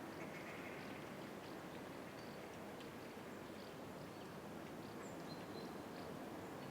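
Outdoor natural ambience: a steady, even rush of background noise with scattered short, high bird chirps, and a brief high whistle about five seconds in.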